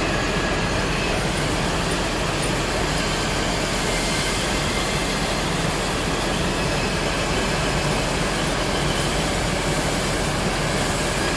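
Paddy rice pouring in a steady stream off the head of a rubber conveyor belt into a boat's cargo hold: a continuous, dense hiss of falling grain, with the conveyor's drive running as a low hum underneath.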